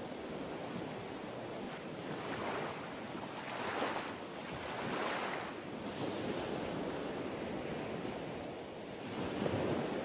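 Ocean waves washing on a shore: a steady rush of surf that swells and ebbs in soft washes every second or few.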